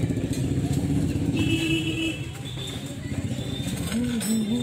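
A motor vehicle engine running, louder for the first two seconds and then easing off, with a few short rising-and-falling tones near the end.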